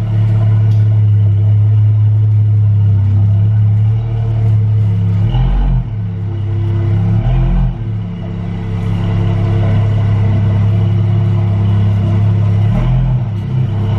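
Car engine running steadily at low speed, with three short changes in the engine note a little over five seconds in, at about seven and a half seconds, and near the end.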